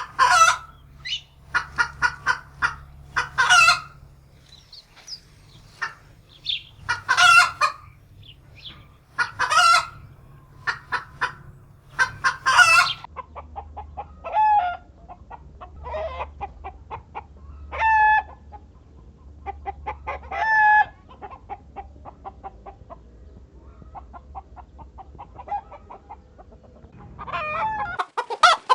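Chickens clucking, broken every few seconds by loud squawks. About halfway through, the recording changes to softer, busy clucking with short pitched calls every second or two.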